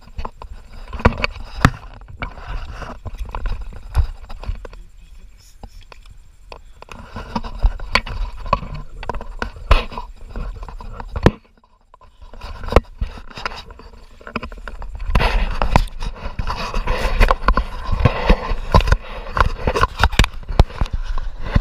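Paddling a plastic sit-on-top kayak: irregular knocks and scrapes of the paddle and gear against the hull, with water splashing and wind rumbling on the camera microphone. It gets busier and louder in the second half.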